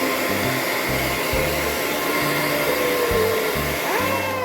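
Hair dryer blowing steadily, with music with a bass beat playing underneath.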